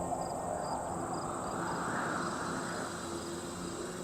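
Crickets calling: a steady high-pitched trill with an evenly repeating chirp over it, above a soft rush of background noise that swells about two seconds in and a faint low hum.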